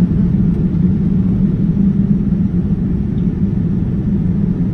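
Cabin noise of a Boeing 787-9 airliner in flight, heard from a window seat: a steady low rumble of engines and airflow with a hum running through it.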